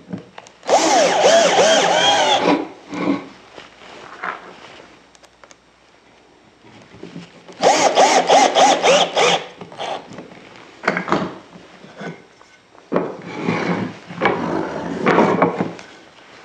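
Cordless drill driving screws into a pine chair frame: two runs of about two seconds each, the motor pitch wavering as each screw bites into the wood. Between and after them come wooden knocks and softer scraping as the pieces are handled.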